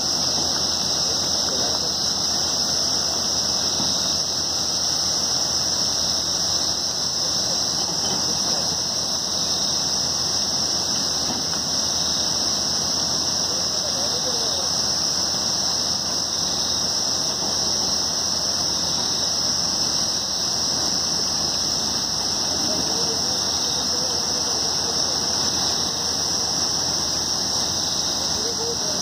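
River rushing over a rocky bed: a steady, unbroken rush of water with a constant high hiss above it.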